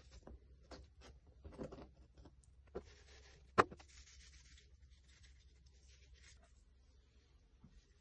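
Quiet hand-handling sounds of preparing raw fish fillets on a plastic cutting board: soft rubbing and light taps, with a sharp click about three and a half seconds in amid a brief hiss.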